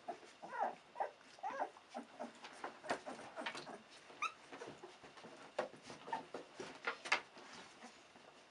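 Sixteen-day-old Australian cattle dog puppies whimpering in short, high, arching cries, mostly in the first two seconds, with another rising squeak about four seconds in. Faint scuffling and clicking of paws on the bed runs between the cries as the mother moves among them.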